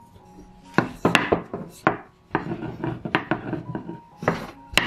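Wooden rolling pin rolling back and forth over green matcha mochi dough in a series of rough, rumbling strokes. The strokes start about a second in and pause briefly in the middle.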